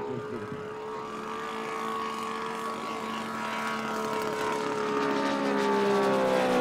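Saito FG-90R3 three-cylinder four-stroke radial engine of a giant-scale Hangar 9 Ki-43 Oscar model in flight, running steadily at a constant throttle. It grows louder as the plane approaches, and its pitch sags slightly near the end as it passes overhead.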